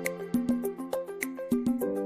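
Background music: a light instrumental track with sustained pitched notes over a steady beat of crisp percussion ticks.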